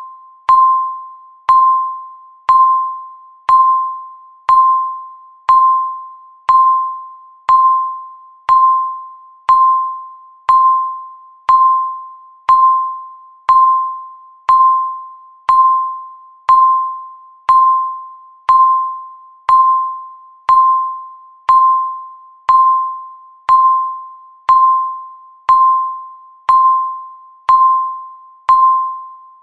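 Countdown timer beep sounding once every second, a single chime-like tone that starts sharply and rings away before the next one.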